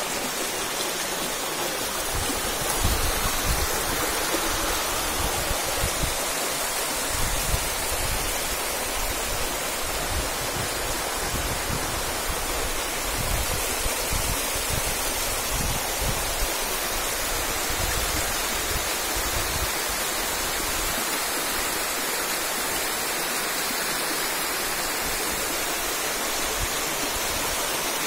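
Small mountain waterfall and stream rushing over rocks: a steady, even rush of water, with irregular low rumbles underneath.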